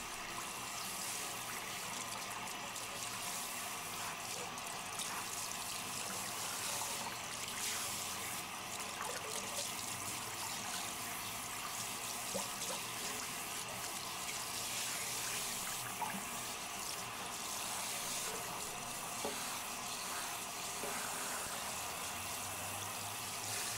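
Handheld shower head spraying a steady stream of water onto a wet dog's coat and the bathtub, rinsing out shampoo.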